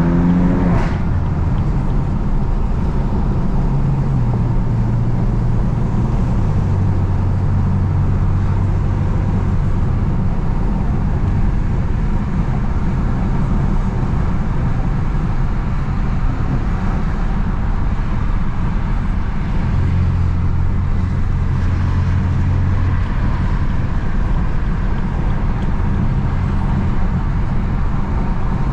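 BMW F80 M3's twin-turbo straight-six heard from inside the cabin through a single mid pipe and stock exhaust, under a steady haze of tyre and road noise. The engine note rises in the first second, then steps lower a couple of times and holds steady at cruise.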